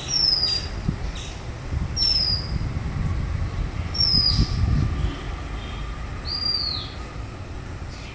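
A songbird calls repeatedly: a short, high whistled note falling slightly in pitch, about every two seconds, with one differently arched note near the end. Underneath is low rubbing and handling noise as a hand works oil around a glass bowl.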